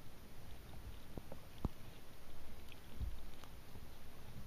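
Scattered water drops ticking sharply on a kayak deck and the camera close by, a few irregular ticks over a low, uneven rumble of water and handling that swells around three seconds in.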